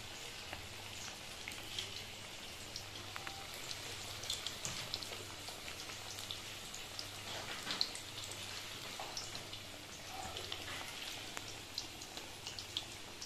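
Marinated chicken pieces deep-frying in hot oil: a steady sizzle with scattered crackles and pops.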